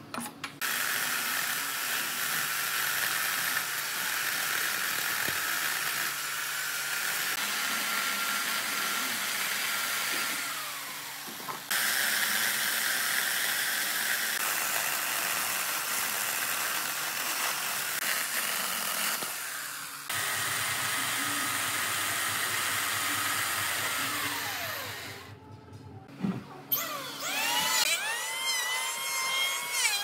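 Corded electric chainsaw cutting through a dry wooden stump, its motor running steadily in three stretches, the pitch sliding down as each cut ends. Near the end an electric hand planer starts up with a whine that wavers in pitch as it cuts.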